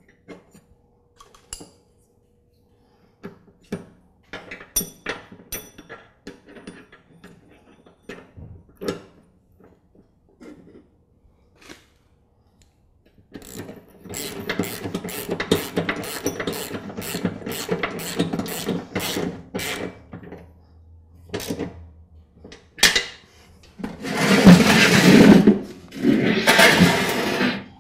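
Loose metal clinks of small hardware, then a socket-wrench ratchet clicking rapidly in runs as the nut on the deck idler pulley is tightened down. Near the end come two loud rough scraping noises, each about a second long, as the steel mower deck is shifted on the floor.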